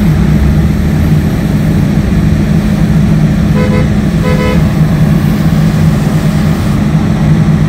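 A vehicle engine running with a steady low drone, and a car horn tooting twice briefly about four seconds in.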